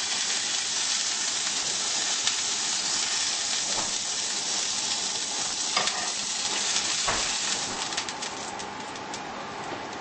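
Gambas frying in olive oil in a frying pan: a steady sizzling hiss that eases a little near the end, with a few light clicks of a utensil against the pan.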